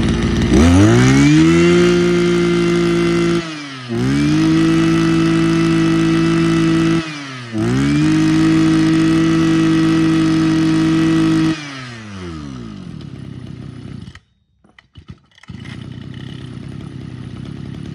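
Mitsubishi TL261 26cc two-stroke brush cutter engine revved to full throttle three times, each held for about three seconds and dropping back briefly between. It then falls back to a lower idle, with a short break about two thirds of the way through.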